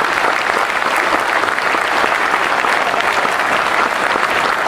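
A crowd applauding with steady, dense clapping.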